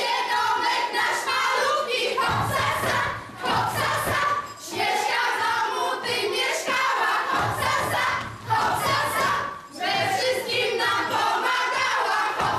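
A mixed group of children and adults singing a song together in phrases of two to three seconds, with short breaths between them.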